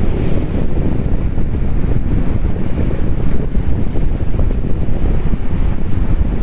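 Wind buffeting the microphone in a heavy, unsteady low rumble, over sea waves washing and breaking against shore rocks.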